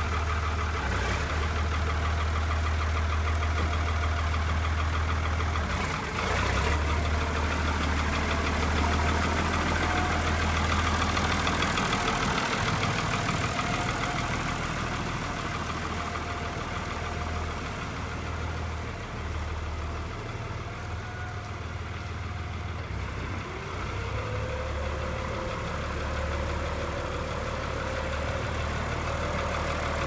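1993 Fiat F110 DT tractor's diesel engine running steadily at low speed as the tractor drives slowly. About three-quarters of the way through, a higher whine rises and then holds steady alongside the engine.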